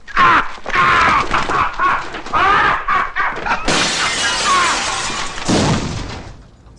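A man's loud, anguished scream, its pitch wavering up and down. About three and a half seconds in, window glass shatters with a long crash that trails off.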